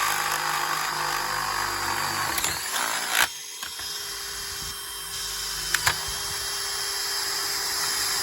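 Small electric drill running steadily as it bores ventilation holes through the plastic case of a modem-router, so the unit stops overheating. The motor whine sags briefly about two and a half seconds in, a few sharp clicks are heard, and the drill picks up again.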